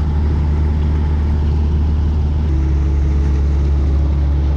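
Kobelco excavator's diesel engine running steadily, a loud low drone. About halfway through, a steady higher whine joins and the drone grows a little stronger.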